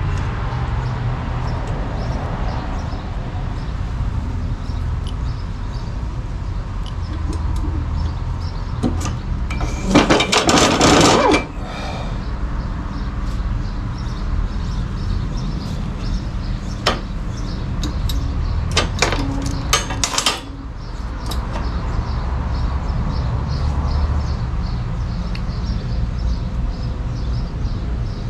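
Metal handling on the ArcDroid CNC robot: scattered light clicks, then two longer bursts of scraping and rattling about ten and nineteen seconds in, as its steel arm and perforated calibration links are moved over a steel grate. A steady low hum runs underneath.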